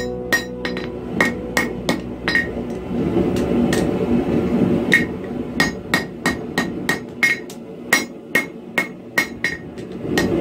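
Blacksmith's hand hammer striking a hot 1075 steel knife bar held in tongs on an anvil: sharp ringing blows at about three a second. The blows stop for a couple of seconds about two and a half seconds in, then start again and keep a steady rhythm.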